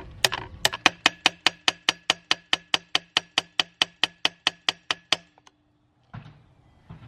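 Hammer tapping rapidly on a seized steel stud and nut in the aluminium casing of a 1950s David Bradley chainsaw, about six ringing metal blows a second, stopping about five seconds in. The tapping is to break the stuck nut loose.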